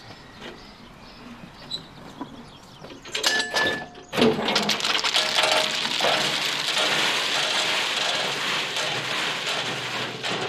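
A round-bodied steel tipping skip wagon on a narrow-gauge field railway being tipped to empty it: metal clanks and a short screech about three seconds in as the body swings over, then from about four seconds a loud, continuous rattle of crushed stone pouring out of the steel body onto the ground.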